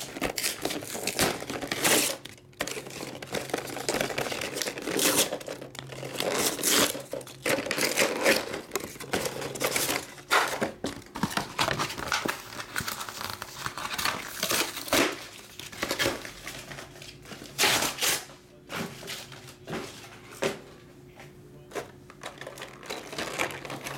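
Plastic wrapping and card-pack packaging crinkling and tearing in irregular bursts as a sealed trading-card box is unwrapped and opened.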